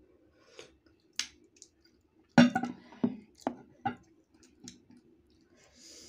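A sip from a white ceramic bowl of chili soy sauce, with small mouth clicks. About two and a half seconds in comes a quick cluster of four sharp knocks and clinks, the first the loudest, as the bowl is set down on the table.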